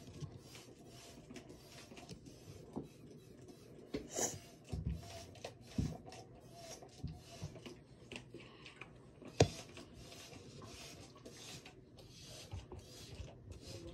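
Faint rubbing, scraping and light clicking from handling at close range, with one sharp click about nine and a half seconds in.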